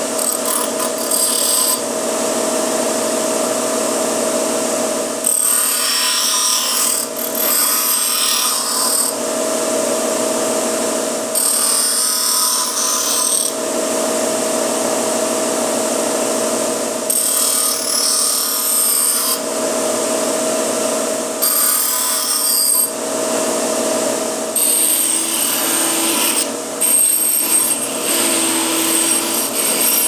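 Bench grinder running with a steady motor hum while a stainless-steel spoon piece is pressed to its wheels in about six bursts of grinding noise, each lasting a few seconds, shaping the beak of a spoon bird sculpture.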